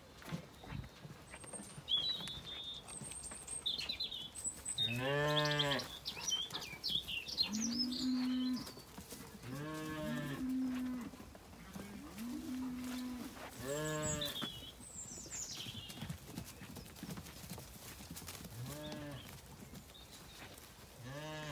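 Zwartbles sheep bleating repeatedly, about eight calls a few seconds apart, some long and wavering, others shorter and flatter. Small birds chirp faintly in between.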